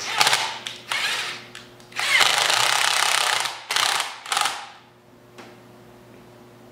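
Cordless drill-driver run in several short bursts, with a longer steady run about two to three and a half seconds in.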